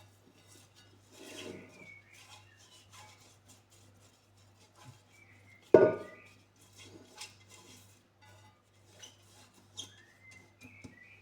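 Kitchen dishes and utensils being handled: scattered clicks and scrapes, with one loud knock about six seconds in.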